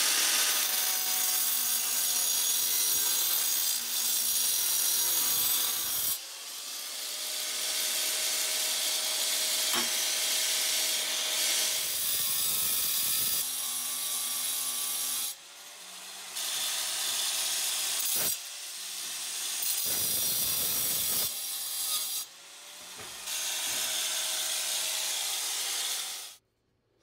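Electric angle grinder with a diamond wheel cutting through the steel welds of a hand truck's axle bracket. The grinding comes in several stretches with sudden breaks between them and stops abruptly near the end.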